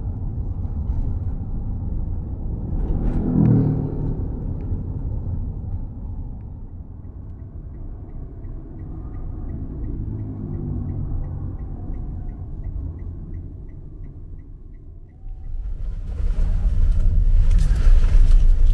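Steady engine and road rumble heard inside a moving car, swelling louder about three seconds in. From about six seconds a turn-signal indicator ticks about three times a second until nearly the end. The noise then grows much louder.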